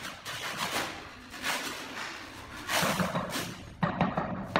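Gloved hands and a small hand tool scraping and rubbing on large ceramic floor tiles and wet mortar while the tile joint is worked: a string of short, rough scrapes, loudest about three seconds in and again near the end.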